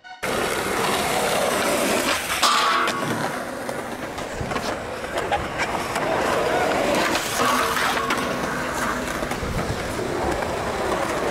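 Skateboard wheels rolling over rough concrete, a steady rumble broken by a few sharp clacks of the board.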